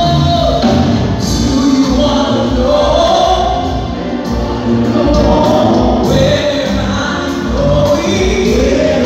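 Gospel worship song: a choir of voices singing together over instrumental backing.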